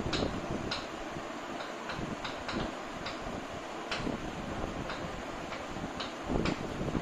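Chalk on a chalkboard while words are being written: a run of short, irregular taps and scratches as each stroke hits the board, over a steady background hiss.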